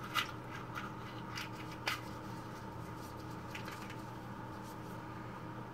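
Small clicks and light scratches of gloved hands lighting a candle: a few sharp ticks in the first two seconds, the loudest about two seconds in, then only a faint steady hum.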